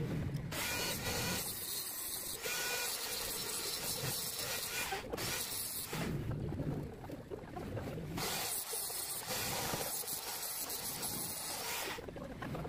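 Small handheld grinder with a small abrasive wheel running against a crankshaft journal in three hissing bursts of a few seconds each, stopping in between, as a damaged crankshaft is dressed.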